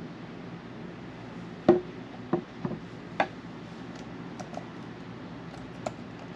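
Typing on a Microsoft Surface's keyboard cover: four heavier key strikes in the first half, then quick light key taps, over a steady low background hum.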